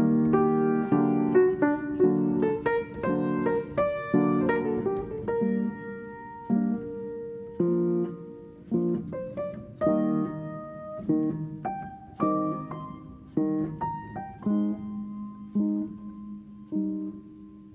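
Background piano music: single notes and chords struck one after another, each ringing out and fading, busier in the first few seconds and sparser after.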